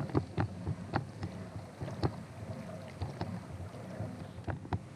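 Kayak on the water: irregular light knocks and small water slaps against the hull, several times a second.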